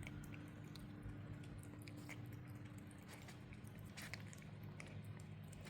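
Kitten licking and chewing a Friskies lickable cat treat: faint, scattered small wet clicks of the tongue and mouth.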